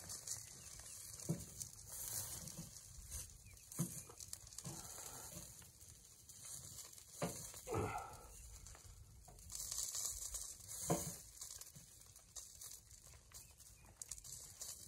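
A steady hiss of rain on the tent and food sizzling in a wire grill basket, with a few sharp metal knocks as the basket is handled and turned.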